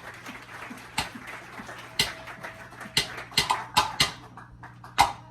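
Drumsticks clicking, sharp dry clicks about once a second, with a few quicker extra clicks just past the middle.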